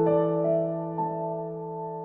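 Background piano music: soft sustained chords, with new notes struck about half a second and a second in.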